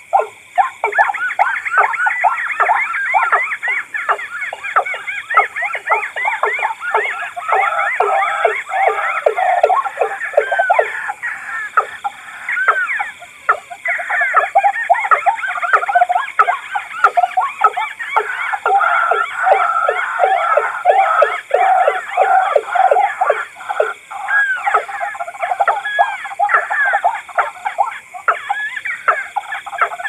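Mixed recording of rail calls (watercock, white-breasted waterhen and crake) playing as a bird lure: dense, rapid series of short repeated call notes, several series overlapping at about four or five notes a second.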